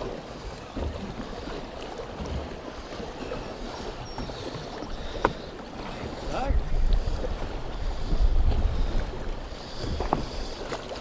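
Wind rumbling on the microphone over choppy lake water slapping against a boat's hull. The rumble grows heavier about six seconds in, and there is a sharp knock about five seconds in.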